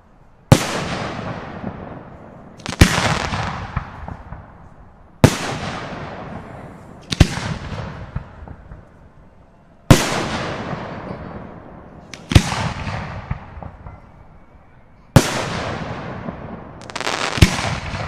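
Aerial firework shells bursting one after another: about nine sharp bangs, roughly every two to three seconds, each followed by a long fading crackle, with two bursts close together near the end.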